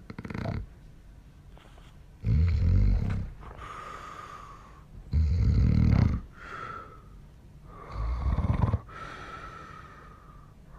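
A man snoring heavily in his sleep: three loud, deep snores about three seconds apart, each followed by a quieter breath with a thin whistle in it.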